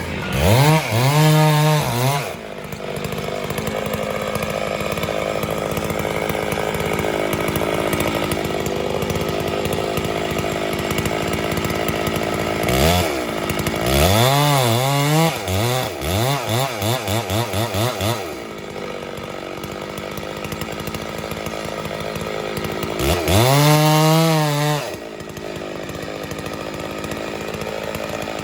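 Two-stroke chainsaw running, its engine revved up to full throttle three times and running steadily at a lower note in between. The second rev-up ends in a few quick throttle blips.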